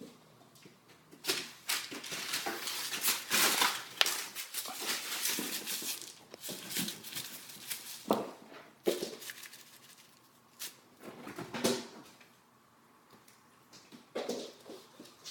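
Bengal cats scampering and scrabbling on the floor during a game of fetch: irregular scratchy rustles and sharp taps, busiest in the first half, then scattered short scuffles.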